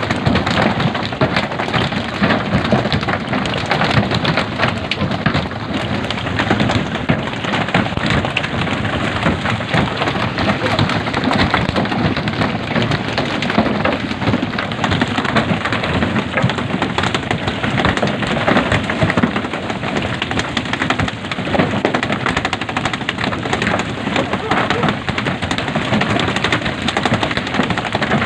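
Continuous splashing and spattering of water with a dense run of small slaps and knocks, from small tuna being hooked, swung aboard a pole-and-line fishing boat and flapping on the deck.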